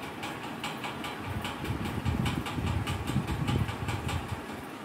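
Labrador puppy panting quickly, about four short breaths a second, over a low, uneven rumble.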